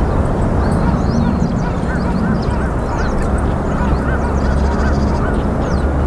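Waterfowl calling: a run of short rising-and-falling notes, about three a second, over a steady low rumble, with scattered thin, high chips from small birds.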